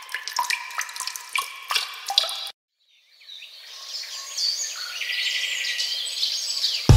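Water drops dripping and plopping, several a second, with short ringing pitches. After a brief silence, birds chirp over a steady hiss that slowly fades in.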